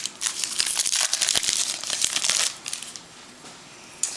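Crinkly plastic packaging being handled and torn, a dense run of quick crackles for about two and a half seconds that then dies down to faint rustling.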